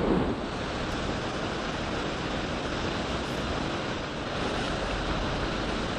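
Steady rush of river water pouring over a low step in the river bed (a Sohlschwelle, a small grade-15 rapid), with a brief louder rustle right at the start.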